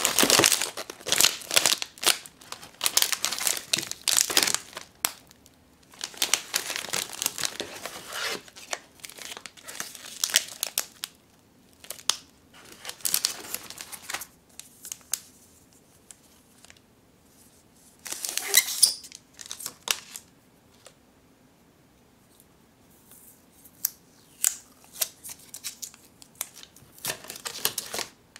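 Plastic snack wrappers and a thin plastic chopstick sleeve crinkling and rustling as they are handled, in irregular bursts with short pauses. The loudest bursts come near the start and about two-thirds of the way through.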